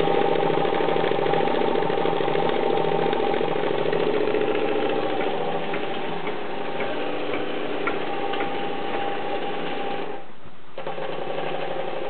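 Twin-cylinder model steam engine running fast on steam from an espresso maker: a rapid, steady mechanical clatter with steam hiss. It dips briefly about ten seconds in.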